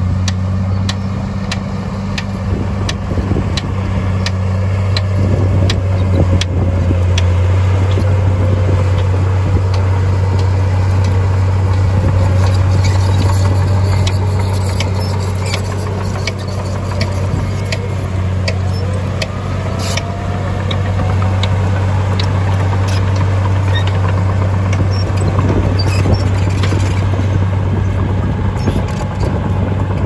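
Komatsu D53P bulldozer's diesel engine running steadily at a low hum, with frequent sharp clicks and clanks throughout.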